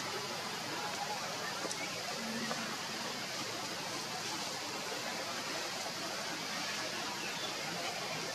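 Steady outdoor background hiss with no distinct calls or knocks.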